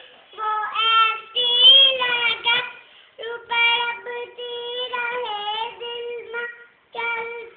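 A young boy singing a naat unaccompanied in a high voice, long held phrases that glide in pitch, broken by brief pauses for breath.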